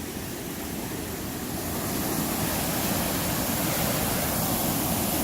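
Steady rush of flowing water, growing a little louder about two seconds in.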